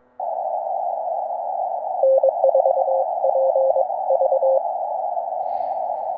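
Band hiss from the Ten-Tec Eagle transceiver's receiver on 40 m. About two seconds in, a weaker Morse code signal from another station is keyed for about two and a half seconds, lower in pitch than the operator's own sidetone.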